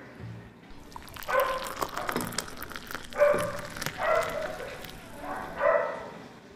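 A dog barking several times in short single barks. Under it, the fizzing crackle of Sprite being poured over ice and foaming in a glass, from about a second in until near the end.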